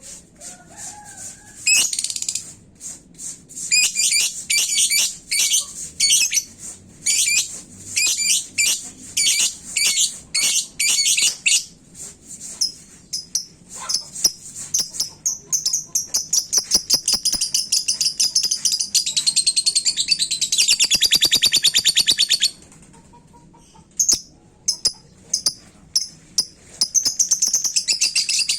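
Lovebird singing: a run of short, high, sharp calls about one a second, then a long, rapid chattering trill. The trill breaks off briefly and starts again near the end.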